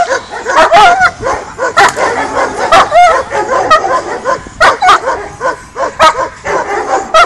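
German Shepherd barking hard and fast, about two to three barks a second, while lunging on the leash at a decoy in protection work.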